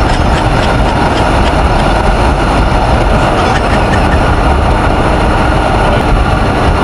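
Steady rush of wind on the microphone over the road and engine noise of a TVS Ntorq 125 scooter, its single-cylinder four-stroke engine running at speed on the open road.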